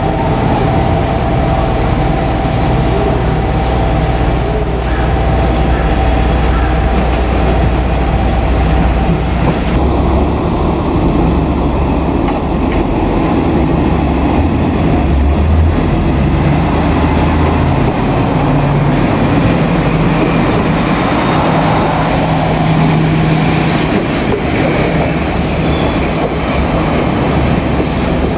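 Train running past on the track, a loud steady rumble of wheels and running gear with a low machine hum for the first part. A short high wheel squeal comes near the end.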